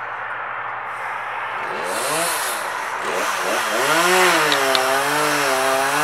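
Two-stroke chainsaw running at a low, steady speed, then from about two seconds in revving hard and cutting into the trunk of a Mexican fan palm, its pitch rising and falling again and again under load.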